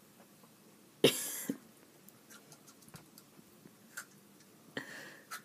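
A boy coughing and gagging on a mouthful of vanilla wafer dipped in a foul-tasting liquid: one loud cough about a second in, then a softer one near the end.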